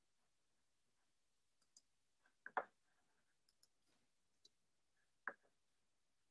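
Near silence broken by a few faint clicks and taps, the loudest about two and a half seconds in and another a little after five seconds.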